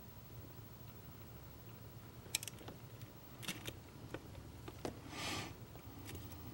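Faint clicks and taps of pliers on the small metal and plastic parts of a model passenger car as a wire is crimped: about five scattered clicks, with a short soft hiss a little after the middle, over a low steady hum.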